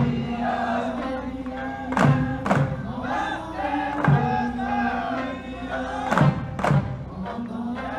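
Okinawan folk song for traditional eisa: a singer with sanshin (three-stringed Okinawan lute) accompaniment, holding long notes. Heavy drum strikes come in pairs about half a second apart, roughly every two seconds.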